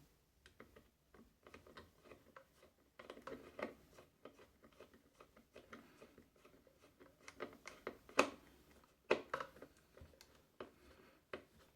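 Screwdriver tightening the screw that holds a replacement power amplifier IC on a home theatre amplifier board: faint scraping and small clicks, with a sharper click about eight seconds in.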